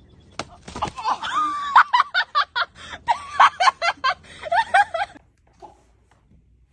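A person laughing hard in a rapid run of short, high-pitched bursts, stopping about five seconds in.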